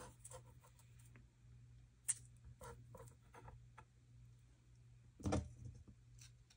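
Small clicks and light scraping of a metal palette knife working shrunken Shrinky Dink plastic pieces off parchment in a mini pancake maker. There is a sharp click about two seconds in, and a louder soft knock a little after five seconds as a piece is set down on the paper.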